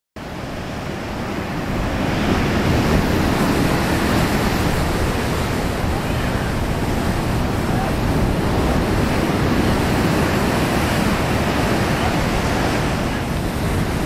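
Ocean surf breaking and washing up a sandy beach, a steady rushing noise, with wind buffeting the microphone.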